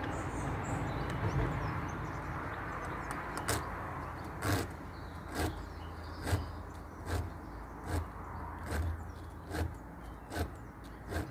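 Battery chainsaw cutting through a log, then a run of about ten sharp knocks, a little under one a second, over a low steady hum.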